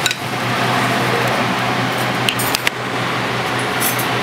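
Steady rushing noise with a low hum, like a kitchen fan, with a few light clinks of kitchenware partway through and near the end.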